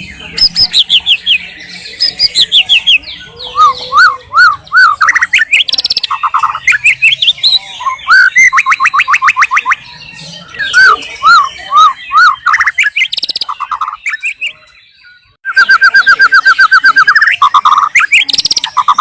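White-rumped shama (murai batu) singing a loud, varied song of fast repeated whistled notes, trills and rising and falling slurs, with a brief pause about three-quarters of the way through.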